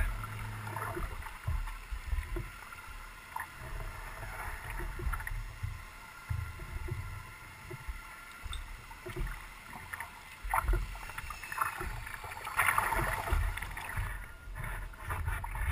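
Kayak paddling: paddle blades dipping and splashing in the water with irregular low thumps against the hull, heard from a microphone on the kayak itself. A louder burst of splashing comes about twelve to thirteen seconds in.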